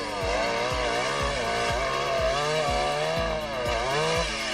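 Chainsaw engine revving, its pitch rising and falling with the throttle, over background music with a steady thumping beat.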